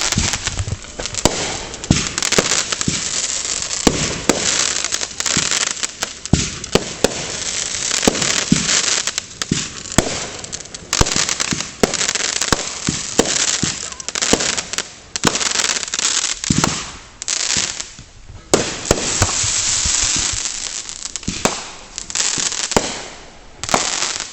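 Backyard consumer fireworks going off in a rapid string of bangs and pops over a continuous crackling hiss, with a short lull about three-quarters of the way through.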